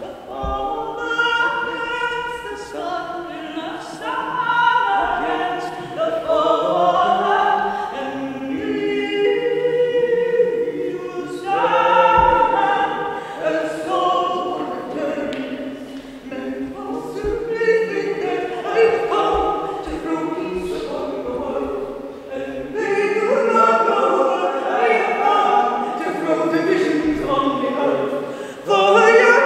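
Several voices singing a traditional song a cappella, with no instruments and no break in the singing.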